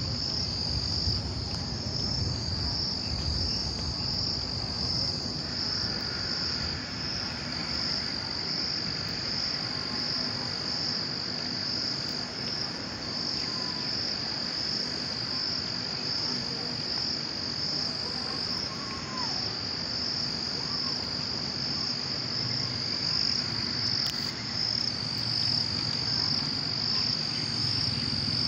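A steady, high-pitched insect chorus, trilling without a break, over a low even background noise.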